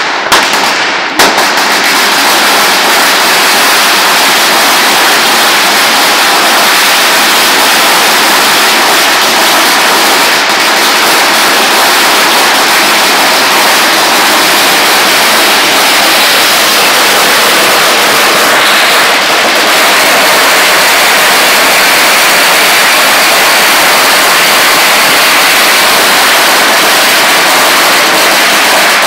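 A long string of firecrackers, a 20,000-cracker series, going off loudly in a dense, unbroken crackle of rapid bangs. A couple of separate bangs come in the first second, then the string catches and runs on without a break.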